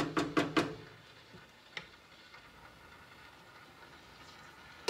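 A spice jar shaken over a stainless stockpot: four or five quick rattling shakes in the first half second. Near the end the pot's glass lid clacks as it is set on.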